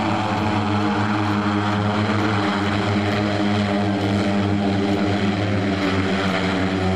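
Steady drone of aircraft propellers: an even, pitched hum with a hiss over it that holds constant throughout.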